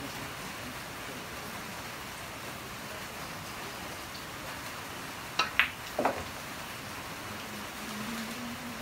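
A pool shot: the cue tip strikes the cue ball about five seconds in, followed a moment later by a sharp clack of ball on ball and a third knock as the black ball drops into a pocket. A steady hiss runs underneath.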